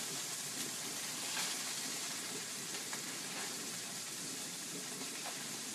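Oil sizzling steadily in a frying pan on medium heat as raw turkey burger patties are laid into it, with a few faint clicks.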